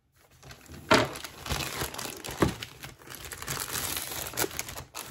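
Mailing package being opened by hand: wrapping crinkling and tearing, with sharp crackles about a second in and again about two and a half seconds in.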